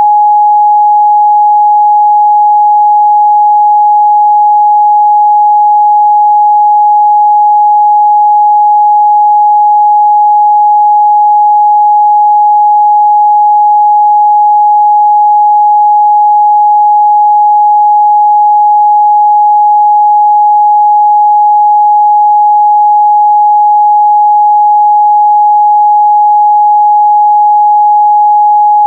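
Steady, loud 836 Hz sine-wave test tone, a single pure pitch held without change.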